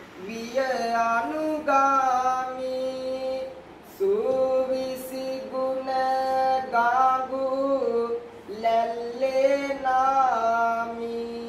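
A young Buddhist monk chanting kavi bana, Sinhala devotional verse, unaccompanied: three long drawn-out sung phrases with the pitch sliding between held notes, each followed by a short breath pause.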